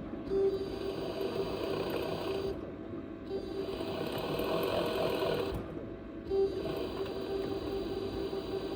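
Panasonic NA-SD drum-type washing machine running and making an abnormal noise: a steady whine over a mechanical whir. The whir cuts back briefly about every three seconds and then surges again.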